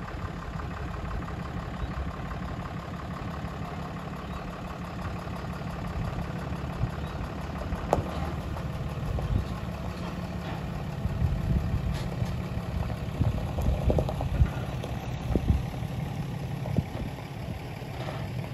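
Ram pickup truck engine running at low speed as it pulls a loaded gooseneck trailer, with scattered clunks and knocks from about eight seconds in, more of them later on.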